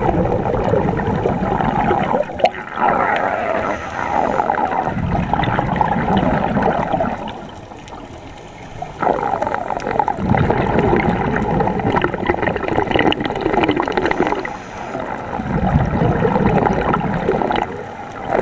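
Scuba regulator exhaust bubbles heard underwater: long bubbling, crackling exhalations lasting several seconds, separated by short quieter pauses for the in-breath, the longest pause about halfway through.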